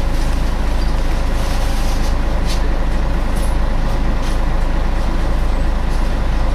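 Inside a Scania L113CRL single-decker bus: the rear diesel engine and its cooling fan running as a loud, steady drone, with a faint steady whine and a few light clicks and rattles.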